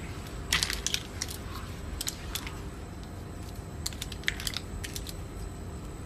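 Mussel shells clicking and clattering against one another in a steel pot as hands dig through the cooked mussels and pry shells open, in three short flurries of clicks.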